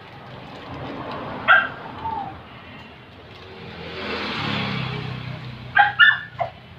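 A dog barking: once about a second and a half in, then three quick barks near the end, while a vehicle passes by in the middle.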